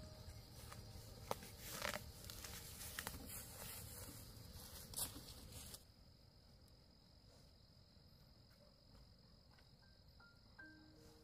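Faint, steady high-pitched drone of insects, with a few rustles and sharp crackles in the first half that stop about halfway through.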